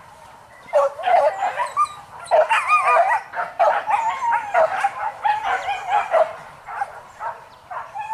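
Several hunting dogs barking and yelping over one another in high, wavering calls, starting up about a second in after a short lull.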